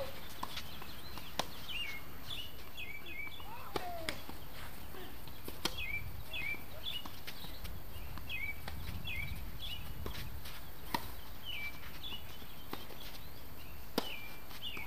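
Tennis balls struck by rackets: sharp pops a few seconds apart during play, one of them a serve near the end. A bird chirps repeatedly in short hooked notes throughout.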